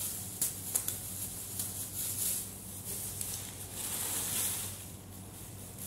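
Thin plastic grocery bags rustling and crinkling as they are handled and rummaged through. The sound comes in irregular bursts, with a few sharp crackles in the first second.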